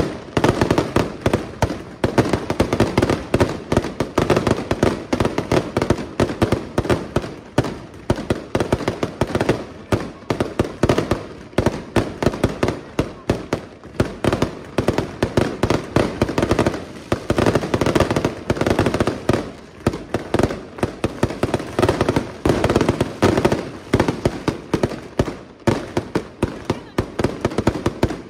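Aerial fireworks display by La Rosa International Fireworks: a dense, unbroken barrage of shell bursts and crackle, many sharp bangs a second with no let-up.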